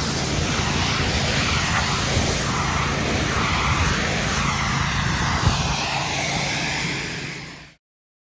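Pressure washer running steadily, a constant engine drone under a dense hiss, fading out about seven seconds in.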